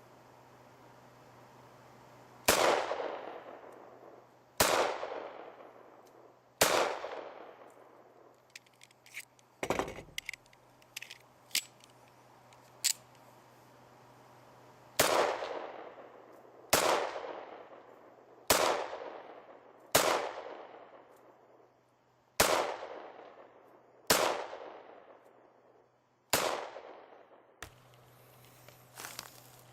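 Springfield Armory 1911 .45 pistol firing: three shots about two seconds apart, then a few seconds of small clicks and knocks, then seven more shots at about the same pace. Each shot trails off in an echo.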